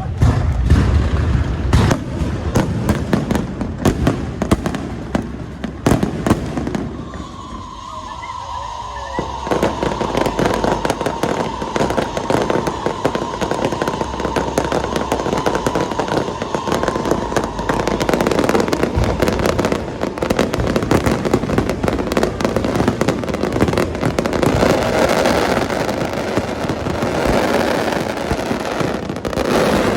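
Aerial fireworks going off in rapid, overlapping bangs and dense crackling throughout. A steady whistle-like tone runs underneath for about ten seconds from about seven seconds in.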